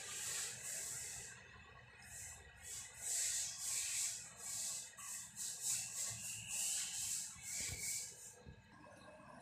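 Paintbrush swishing against a wall as wall paint is brushed on, in quick repeated strokes about two a second that stop near the end.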